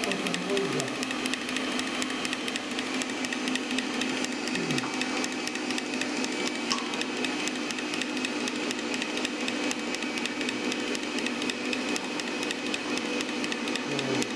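Electric stand mixer running steadily at speed, its wire whisk beating egg whites toward stiff peaks (clara em neve).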